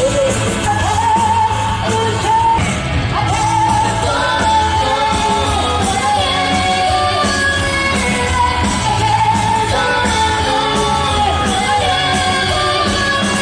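Live concert music: a band playing with a singer holding long, sustained notes.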